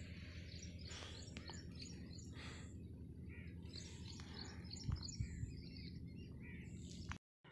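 Small birds chirping in many short, scattered calls over a faint, steady low hum. There is a soft low bump about five seconds in, and the sound cuts off abruptly near the end.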